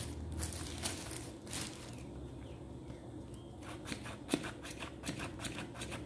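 Plastic bag rustling and light clicking taps as the dirty filters of an Electrolux Ergorapido cordless vacuum are shaken and knocked to empty their dust into the bag; the taps come quicker in the second half.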